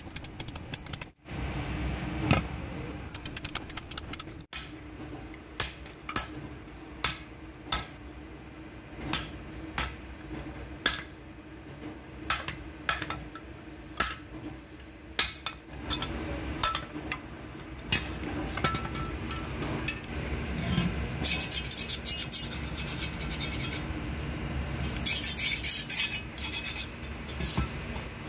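Hammer striking a steel punch to drive the old rivets out of a truck brake shoe: sharp metallic knocks, irregular, roughly one a second. In the second half, a steady low hum with faster clicking and rattling.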